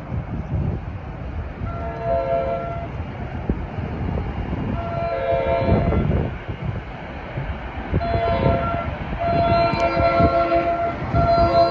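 New Jersey Transit commuter train's multi-note horn sounding a series of blasts, mostly long with a shorter one, as the train approaches a grade crossing, growing louder toward the end.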